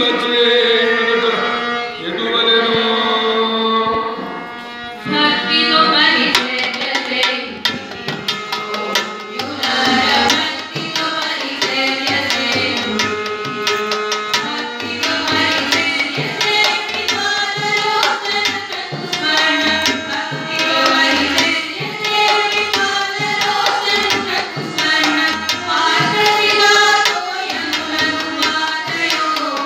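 Group of women singing a devotional song into a microphone, accompanied by a harmonium and a steady drum beat that comes in about five seconds in.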